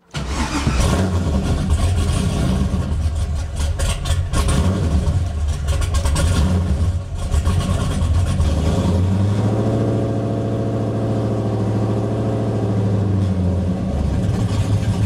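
Car engine running unevenly, its sound rising and falling for the first several seconds, then settling into a steadier idle about two-thirds of the way through. The engine is a freshly swapped, untuned engine that runs poorly.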